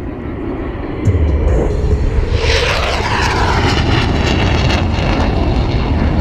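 Jet aircraft flying past: a low roar swells about a second in, then a loud whine that falls in pitch as the aircraft passes, with the roar running on after it.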